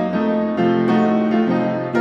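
Background music: a piano melody with new notes struck every quarter to half second.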